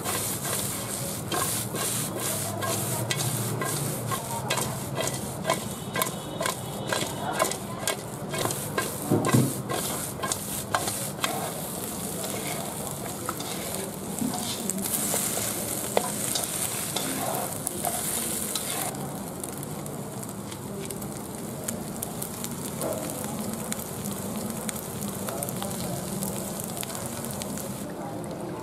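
Small whole eels coated in turmeric, with lemongrass stalks, being tossed and mixed in a metal wok: a rapid, uneven run of clicks and scrapes for the first ten seconds or so, then a softer hiss and rustle of the wet mixture being turned.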